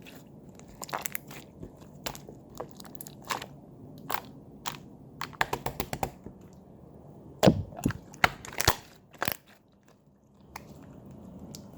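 Homemade clear slime made with soothing gel being worked by hand, giving irregular sharp pops and clicks, with a run of quick ones in the middle and the loudest few just after. Near the end the popping stops and only a faint hiss remains.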